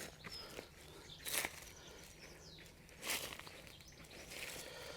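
Faint rustling and scraping of dry potting compost as hands dig through a tipped-out potato tub, in three short swells a second or two apart.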